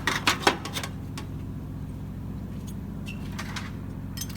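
A quick run of sharp metallic clicks and knocks in the first second, as the new dolly cross member is picked up and handled, then a few faint ticks over a steady low hum.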